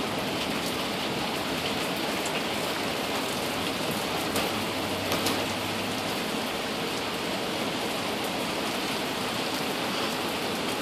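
Steady rain falling, with an occasional louder drop striking close by.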